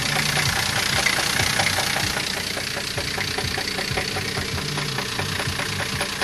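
Engine running with a steady, rhythmic knock, several knocks a second; the owners fear it is about to spin its bearing shells.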